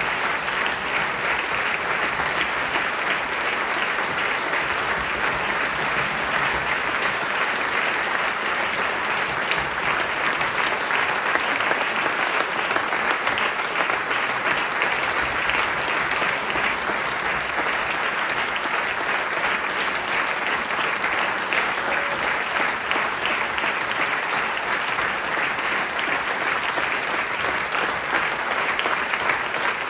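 Theatre audience clapping steadily: the final applause at the end of a play.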